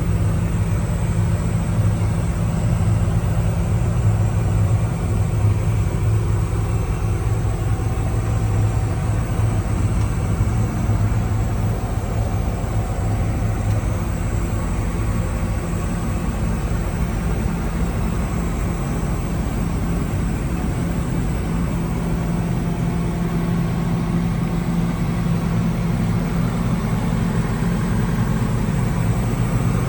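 Hitachi ZX75UR-3 compact excavator's diesel engine running at a steady speed, a constant low hum with no revving.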